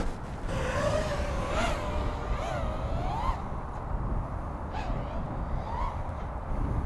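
FPV quadcopter's motors and propellers whining in flight, the pitch rising and falling as the throttle changes, over a low wind rumble on the microphone.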